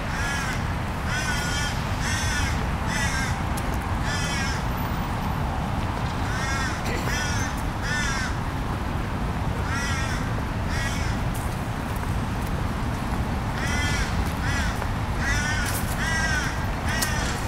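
Crows cawing over and over, short harsh calls coming in clusters of two to four, over a steady low rumble.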